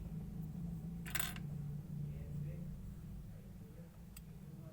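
Clear slime being mixed and worked by hand: soft sticky squishing, with a short crackly burst about a second in and a single click near the end.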